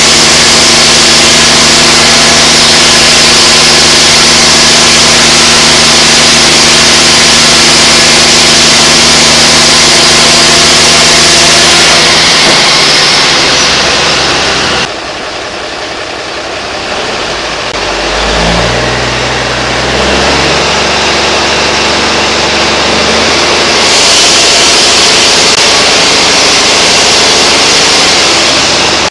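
Sawmill machinery running loudly on its engine, a steady mechanical din. About halfway through it drops away for several seconds, and a low engine note rises and falls. The full loud running returns near the end.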